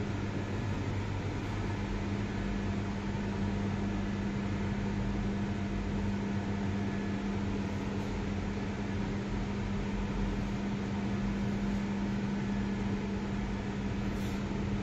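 Steady mechanical hum: a constant low tone over an even rush of air, unchanging throughout.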